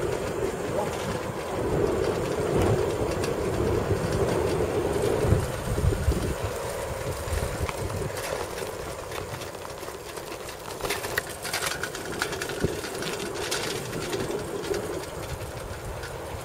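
Wind buffeting the microphone on a fast bicycle descent, over the whir and rattle of the bike rolling on asphalt. A few sharp clicks come about two-thirds of the way through.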